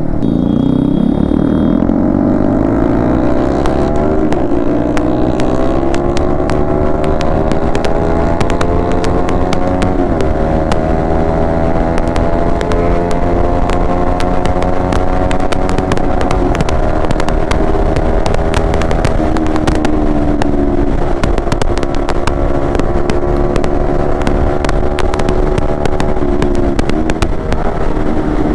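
Yamaha MT-15 V2's single-cylinder engine through an aftermarket Akrapovic exhaust, pulling hard: the pitch climbs over the first few seconds, then drops and climbs again with each of several gear changes as the bike rides on at speed.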